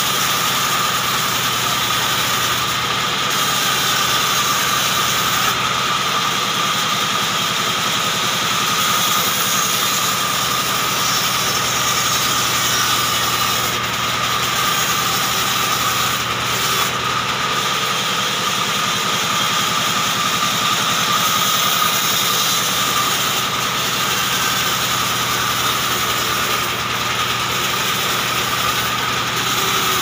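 Large band saw running and sawing lengthwise through a short hardwood log as it is pushed past the blade: a steady mechanical drone with a steady high tone over it.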